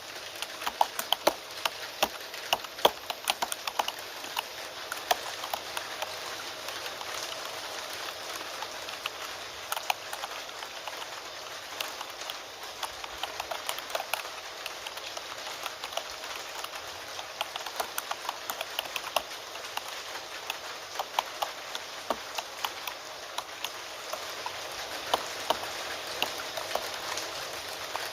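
Keyboard typing, irregular quick clicks of keys, over a steady hiss of rain.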